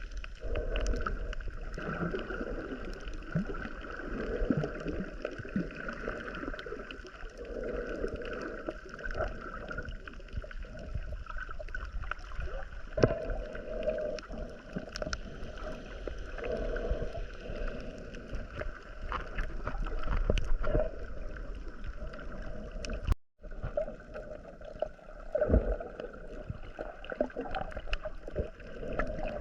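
Boat under way on the water: a steady rush of water with some knocks, cutting out for a moment near the end.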